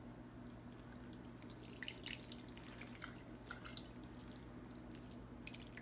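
Turkey brine poured from a saucepan onto a raw turkey in a plastic bag: faint, irregular splashing and dripping that begins about a second and a half in, over a steady low hum.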